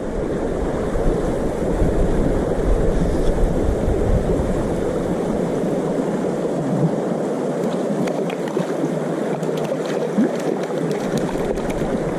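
Small river's water running and babbling over the shallows. A low rumble of wind buffets the action-camera microphone, dropping away for a few seconds in the second half.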